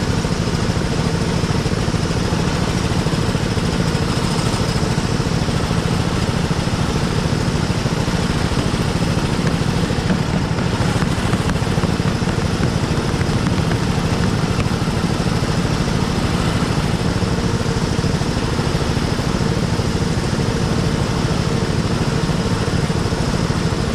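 Go-kart engine running steadily.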